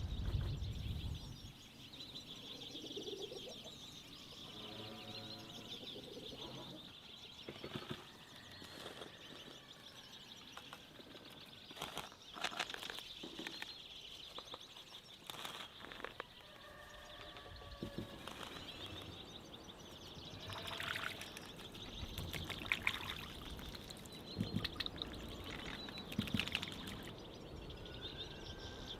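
Outdoor rural ambience: birds chirping steadily, with a few short lower calls and scattered sharp clicks and knocks.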